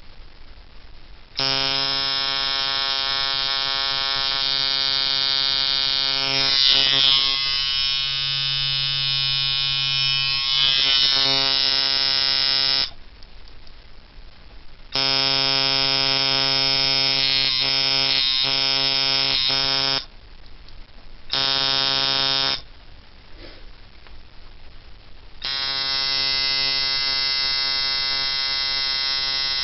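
A 2013 Xam liner coil tattoo machine, fitted with Wes coils and set to a medium throw, buzzing steadily on 3.8 volts. It runs in four stretches: about eleven seconds, about five seconds, a brief one, then about four seconds.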